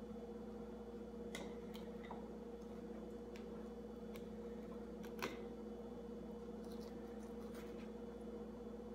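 Faint, scattered clicks and scrapes of a knife filleting fish, one a little louder about five seconds in, over a steady low hum.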